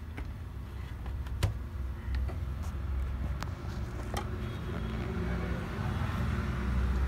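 A few light, sharp clicks and knocks from the plastic chassis of an opened laptop being handled, over a low steady rumble that grows louder toward the end.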